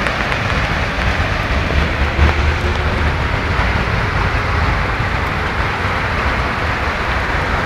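Hailstorm: hail and rain pelting down on the street and surrounding surfaces, a dense steady hiss. A low rumble underneath swells briefly about two seconds in.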